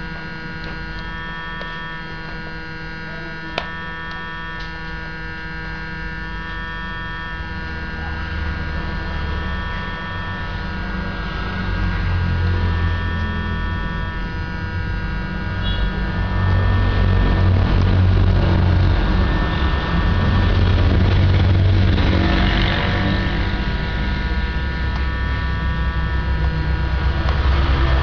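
Steady electrical hum made of several held tones. A low rumble under it grows louder partway through, and there is a single sharp click about three and a half seconds in.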